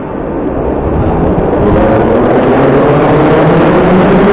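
An 81-717.5 'Nomernoy' metro train pulling away from the platform. Its traction motors whine, rising in pitch and growing louder as it accelerates.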